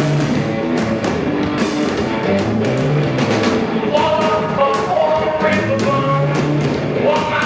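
Rock band music with a full, steady mix, and a melody line coming in about four seconds in.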